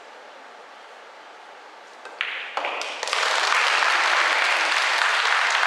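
Audience applauding for a rack won: a few scattered claps about two seconds in, swelling into steady applause.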